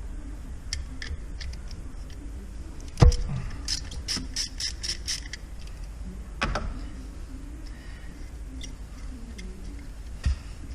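Hand tools working the terminal nuts off the glow plug relay studs: a sharp metallic knock, then a quick run of about seven light clicks, another knock a few seconds later and a short click near the end.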